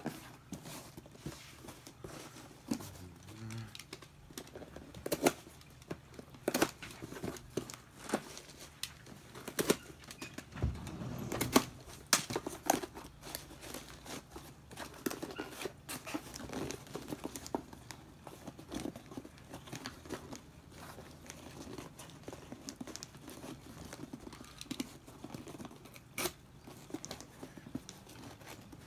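Cardboard being folded, creased and handled by hand: irregular rustles and scrapes with scattered sharp taps and clicks.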